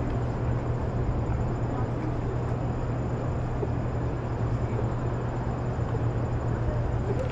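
City street ambience: a steady low hum of traffic under a constant wash of outdoor noise.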